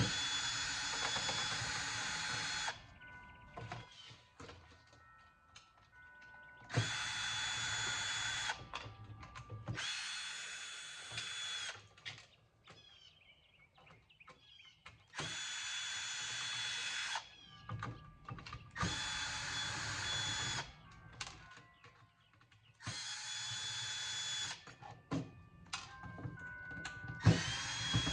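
Power drill-driver backing screws out of a stereo equalizer's metal case, in about seven short runs of a couple of seconds each, with small clicks of handling and loose screws in between.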